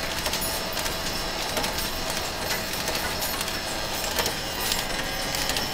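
Overhead line shaft of a belt-driven machine shop running: pulleys and flat belts turning with a steady mechanical rattle of small clicks and a faint steady whine.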